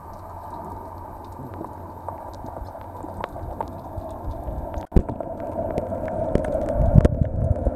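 Underwater water noise heard through a submerged camera: a steady sloshing, bubbling hiss with many scattered small clicks and crackles, getting louder with a low rumble in the second half as the camera nears the surface by the rock wall, with a brief dropout about five seconds in.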